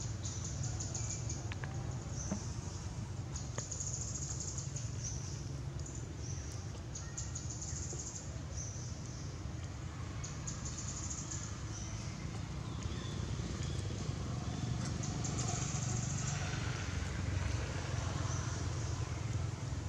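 Outdoor ambience: a steady low rumble under a high-pitched buzzing that comes and goes in short bursts every few seconds.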